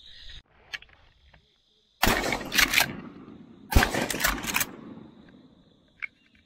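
Two shotgun shots about a second and a half apart, each followed by a trailing rumble and rattle as the body-worn camera is jolted. A steady high cricket trill runs behind.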